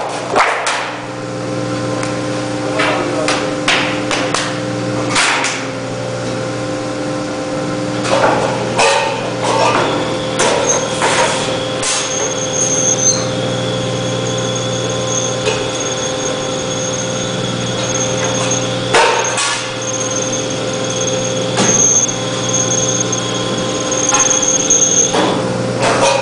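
A V-cutting (V-grooving) machine running with a steady hum, joined by a high whine from about ten seconds in until shortly before the end. Metal sheets clank and knock repeatedly as they are handled on the machine bed.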